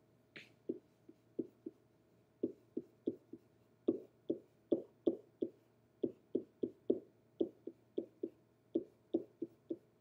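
Pen tapping and knocking on the surface of an interactive whiteboard while writing: a run of short, sharp knocks, roughly three a second, with a short pause about two seconds in.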